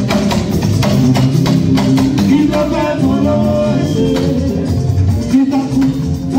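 Live band playing with a steady beat of drums and percussion, bass and keyboard, under a man singing lead into a microphone through the PA speakers.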